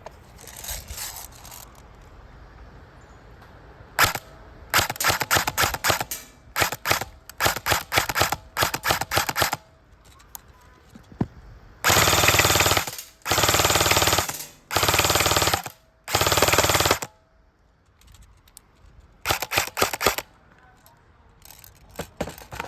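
Lancer Tactical Gen 2 M4 airsoft electric gun (AEG) firing: several short strings of rapid shots, then four sustained full-auto bursts of about a second each, then two more short bursts near the end.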